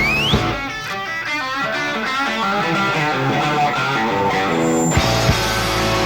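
Live rock band: an electric guitar bends up, then plays a run of notes on its own while the bass and drums drop out. About five seconds in, the full band comes back in with drum hits.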